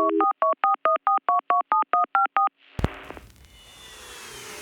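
A telephone dial tone cuts off, followed by a quick run of about a dozen touch-tone keypad beeps as a number is dialled. About halfway through there is a sudden hit, then a fainter whooshing sweep.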